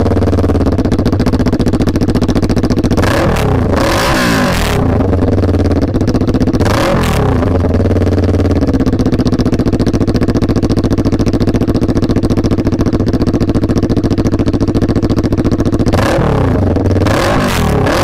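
Kawasaki Ninja 400 RR inline-four motorcycle engine with an SC Project aftermarket exhaust, idling steadily. The throttle is blipped a few seconds in, again at about seven seconds, and once more near the end, the pitch rising and falling each time.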